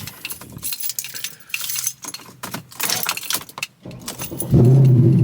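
Car keys jangling for several seconds, then the Mercedes-AMG C63's 6.2-litre V8 fires up loud about four and a half seconds in and settles to a deep steady run. It breathes through long-tube headers into the stock mufflers.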